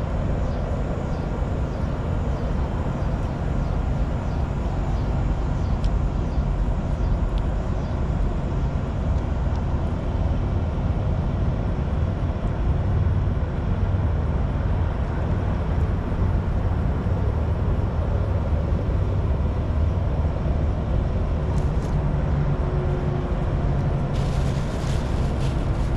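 Steady low rumble of vehicle engines, unbroken throughout.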